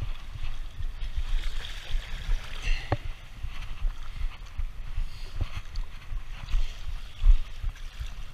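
Lake water washing and splashing over the edge of a concrete pier, with wind gusting on the microphone in an irregular low rumble.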